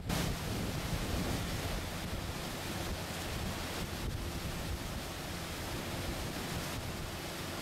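Wind buffeting the microphone over rushing water from a boat under way, with a faint low engine hum. It starts abruptly and then holds steady.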